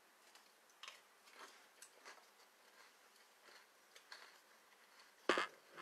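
Eating cereal with a coconut-and-bamboo spoon from a coconut bowl: a scatter of faint small clicks and crunches, with one louder knock about five seconds in.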